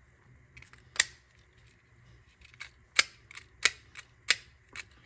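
Irregular sharp clicks of 3D-printed plastic parts being worked by hand, about eight over a few seconds, as the respooler's trigger and shaft are checked for free movement after its screws were re-tightened.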